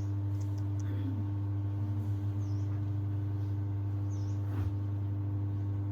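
A bird chirps three times, short high calls, over a steady low hum.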